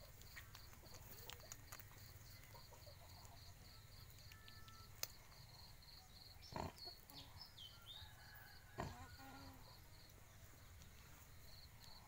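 Faint, with an insect chirping in a quick, even pulse that stops for a few seconds midway; a pig gives two short grunts, about six and a half and nine seconds in.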